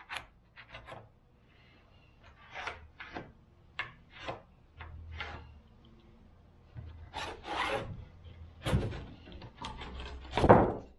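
Oak brace pieces being slid, shifted and pressed into place on a cypress wood tabletop: irregular wood-on-wood scrapes and rubs, with a heavier knock near the end.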